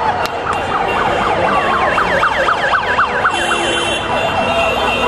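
Electronic siren yelping, with fast up-and-down sweeps about three times a second, changing to a slower wail about three seconds in. Vehicle engines run underneath.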